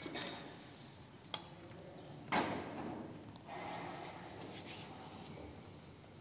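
Faint handling noises on a bench: a light click a little past a second in, then a louder scraping rub about two seconds in that fades, followed by a low rustle.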